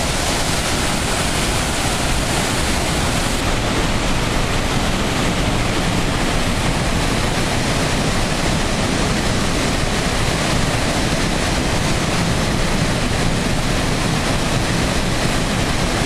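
A waterfall in a rocky gorge: heavy whitewater pouring and churning over boulders in a loud, steady rush with no let-up.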